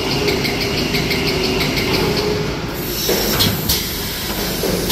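Automatic glue-lamination toilet paper and kitchen towel rewinding machine running, with a fast, even clatter of about six ticks a second over a steady hum. About two-thirds of the way through, the clatter stops and a few sharp knocks follow.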